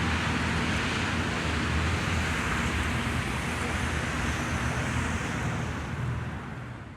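Outdoor road traffic noise with a low, steady engine hum underneath, fading out near the end.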